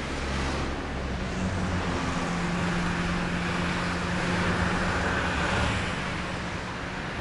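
Steady road traffic noise from passing cars, with a low engine hum under the rush of tyres.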